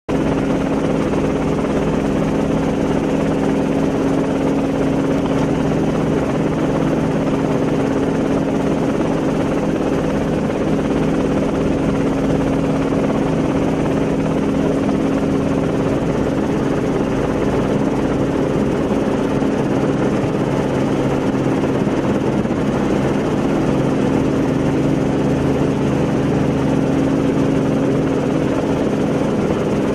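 Steady motor hum that holds one pitch throughout, with no change in speed or load.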